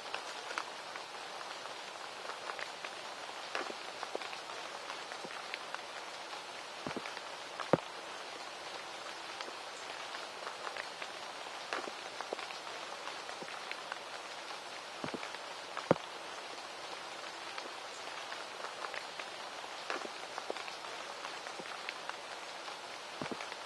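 Steady rain patter with many scattered sharper ticks of drops; two louder ticks about eight and sixteen seconds in.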